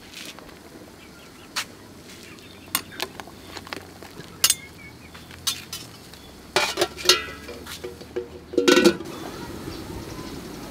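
Metal ladle and tongs clinking against an aluminium cooking pot: scattered light clicks at first, then a quick run of ringing clanks about two thirds of the way in and a single loudest clank near the end.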